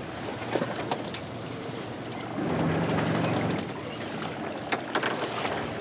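Sea and wind noise on a small fishing boat, with a few light knocks. About two and a half seconds in, a low sound swells louder for about a second, then eases back.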